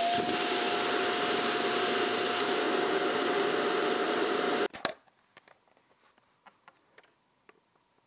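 Cuckoo CRVC-AALM20IGM auto-empty station's suction motor running to pull the dust out of the docked robot vacuum's bin: a loud rushing noise with a steady whine that cuts off suddenly a little under five seconds in. Faint light clicks and taps follow.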